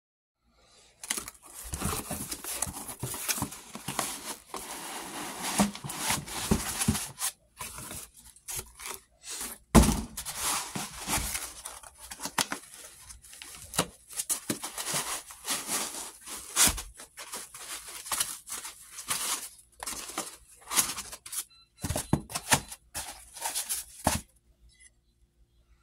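A cardboard box being opened by hand and foam packing sheets pulled out: irregular tearing, scraping and rustling with scattered knocks against the box, stopping shortly before the end.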